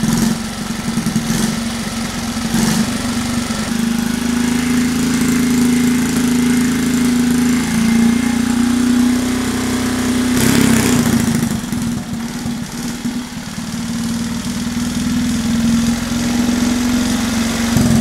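Honda QA50 minibike's small single-cylinder four-stroke engine running steadily at idle, its speed shifting up and down a few times as the throttle is worked.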